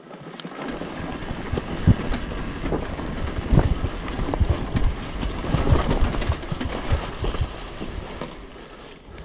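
Adventure motorcycle coming down a steep, rough descent at low revs, with irregular knocks and rattles over a rough rumble that builds over the first few seconds and eases near the end.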